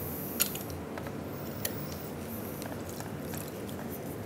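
Lemon halves squeezed in a hinged handheld citrus press: quiet wet squishing with a few light clicks of the press.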